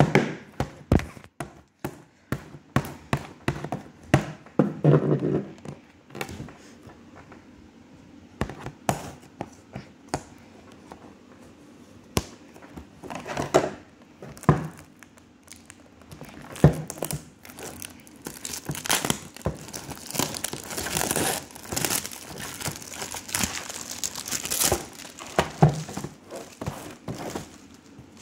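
Clear plastic shrink wrap being torn and peeled off a cardboard candy box, crinkling and crackling, with scattered knocks from handling the box. The crinkling comes thickest about two-thirds of the way through.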